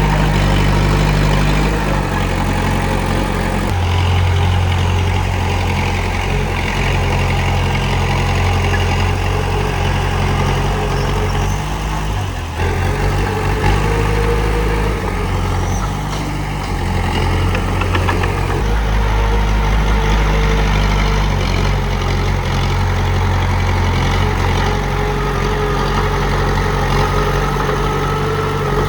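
Komatsu D31P bulldozer's diesel engine running steadily, its low note shifting in strength every few seconds as the machine works.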